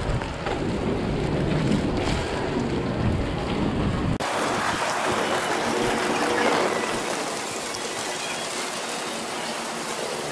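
Heavy rain: a steady hiss of rain falling on the wet street and pattering on the umbrella overhead. For the first four seconds a low rumble of wind on the microphone sits under it. This cuts off abruptly, leaving a brighter, even rain hiss.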